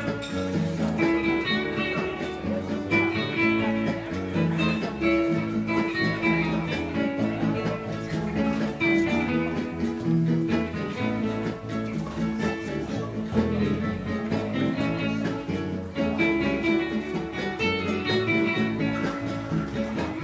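Live instrumental music led by a plucked guitar, with no singing.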